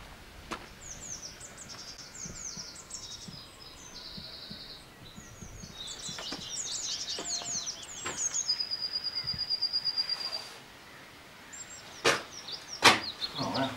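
Songbirds singing in quick rising and falling phrases, with a fast even trill about eight seconds in lasting a couple of seconds. A few sharp knocks near the end.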